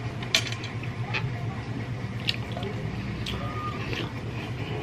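Wet, sticky clicks and squishes of roast chicken being eaten by hand, from chewing and from fingers pulling the meat apart, scattered about a second apart over a steady low hum.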